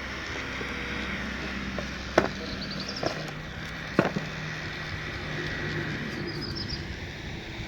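Small handheld electric fan running with a steady whirr, with two sharp clicks, about two and four seconds in.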